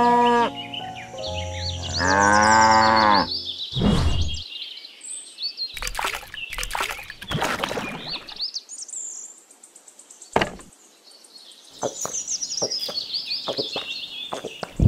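A cow moos once, about two seconds in, over birds chirping. It is followed by a scattered series of sharp knocks and taps.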